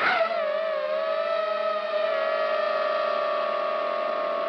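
Camera drone's motors and propellers running, reaching full speed right at the start, then a steady whine with a few pitches that waver slightly as it lifts off the snow and hovers.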